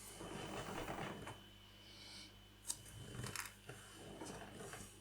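Faint handling of small plastic model-kit parts on a work table: soft rustling, then a light click about two and a half seconds in and a few quieter scrapes and ticks.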